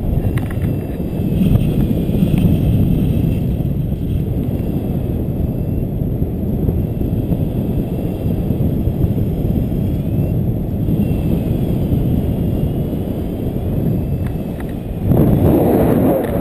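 Wind noise from the airflow of paraglider flight buffeting a pole-mounted camera's microphone: a steady low rumble that swells louder for a moment near the end.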